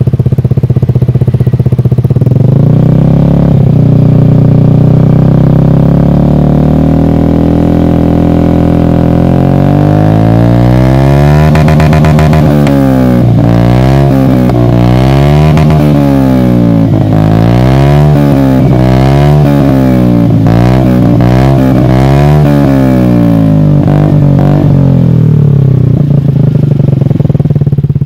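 Modern automatic Vespa scooter's single-cylinder four-stroke engine running through an R9 New Alpha slip-on exhaust with its dB killer baffle removed. It idles, then is blipped up and down about once a second for some fifteen seconds, then settles back to idle.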